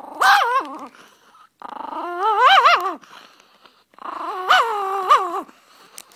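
A Papillon's growling, whining vocalisations in three drawn-out bouts, each rising and falling in pitch, given over its Christmas toys: a small dog grumbling to guard its toys rather than share them.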